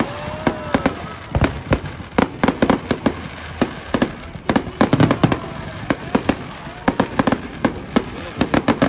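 Fireworks going off: a rapid, irregular string of bangs and crackling pops from aerial shells bursting, coming in dense clusters of many reports in quick succession.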